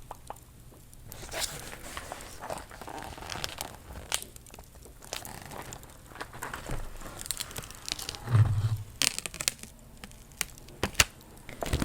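Stickers being peeled from a sticker book: short crackly tearing and crinkling strokes with light clicks, and one dull thump about eight seconds in.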